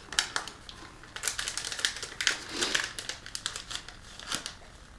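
Small drink-mix sample packets and a clear plastic bag crinkling and rustling as they are handled and packed, in a run of irregular crackles and ticks.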